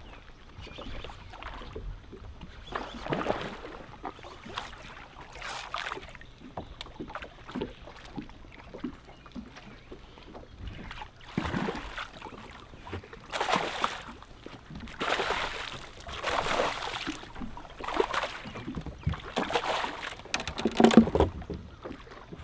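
Water sloshing and splashing in repeated short swishes every second or two, louder near the end, with a few sharp clicks toward the end.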